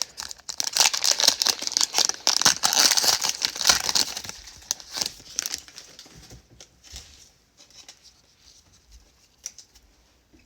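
A plastic trading-card pack wrapper being torn open and crinkled, loud and crackly for about four seconds, then fading to light rustles and clicks of cards being handled.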